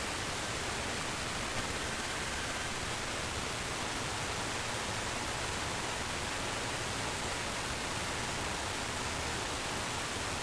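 Steady hiss of radio static from a weather radio receiver, with no broadcast voice or tones over it.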